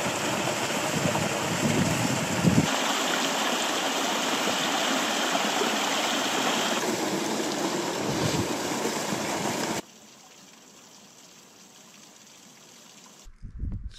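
Water of a mountain river running over rocks, a steady rushing noise that changes abruptly twice. About ten seconds in it drops sharply to a faint hush.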